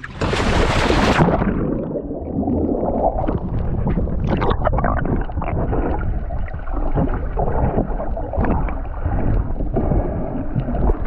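A splash into the water, then muffled bubbling and gurgling as the camera goes under while snorkelling.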